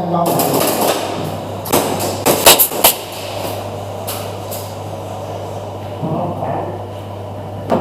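Airsoft pistol fire: sharp cracks, one about a second and a half in, a quick run of about four around two and a half seconds, then two more around four seconds, over a steady low hum.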